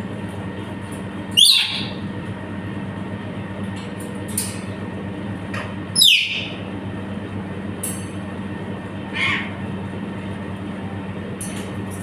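Parrot giving two loud, shrill squawks that drop in pitch, about a second and a half in and again about six seconds in, then a fainter call a few seconds later, over a steady low hum.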